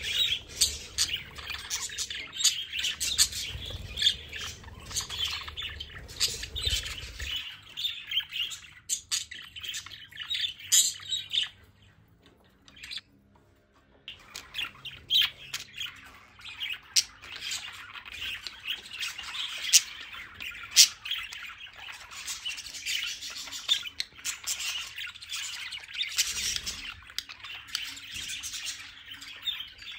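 A group of budgerigars chattering continuously with quick chirps and squawks. There is a brief break of near silence about twelve seconds in.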